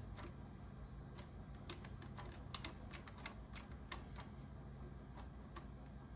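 Faint, irregular clicking from a 1999 Westclox Looney Tunes wall clock's movement as its hands are turned forward by hand, a few clicks a second.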